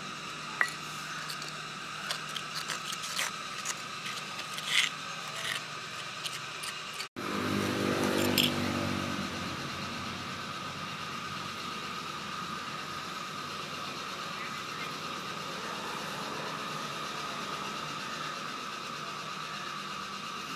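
A steel spoon scraping and clicking against a clay pot as a thick spice paste is mixed: a run of sharp clicks and scrapes. After a sudden break about seven seconds in, only steady background noise remains.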